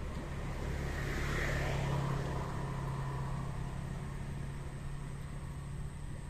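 A motor vehicle passing by: a steady engine hum with a rushing noise that swells to its loudest about two seconds in, then slowly fades.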